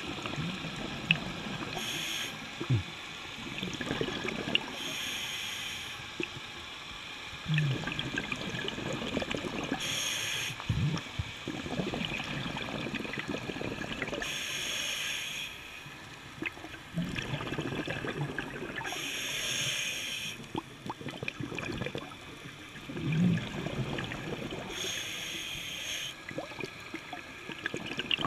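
Scuba diver breathing through a regulator underwater: a short hiss on each inhale, about every five seconds, each followed by a rush of bubbling exhaust, with faint clicking and crackling throughout.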